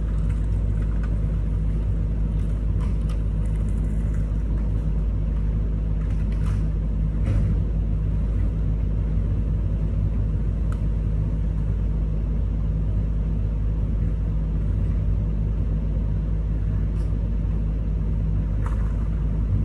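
Komatsu PC210 excavator's diesel engine running steadily, heard from inside the cab, with a few faint clicks over the rumble.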